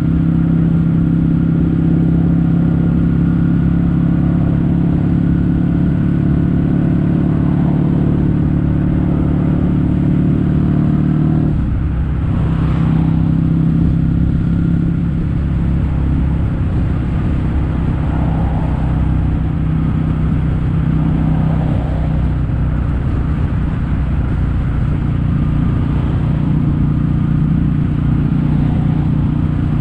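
Kawasaki W800's air-cooled parallel-twin engine running through Yamato stainless-steel Cabton-style silencers in their standard form, heard while the bike is being ridden. The engine note holds steady, then changes about eleven and a half seconds in, and runs on steadily after that.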